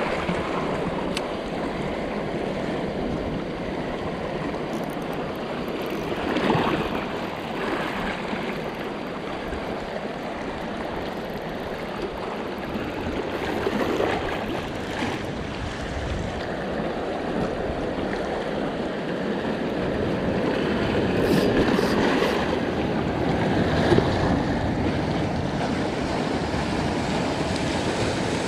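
Small sea waves washing and splashing over shoreline rocks, a continuous rushing hiss that swells louder every several seconds as each wave breaks.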